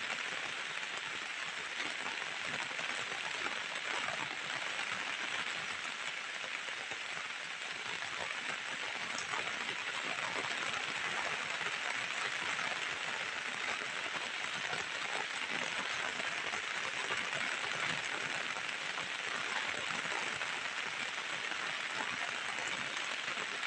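Steady heavy rain falling, a constant even hiss of drops on wet surfaces.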